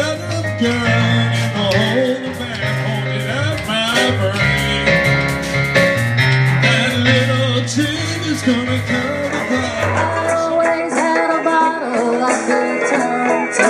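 Live band music: singing over electric keyboard, drums and a steady bass line. About ten seconds in it cuts to a different song, with guitars and a lighter low end.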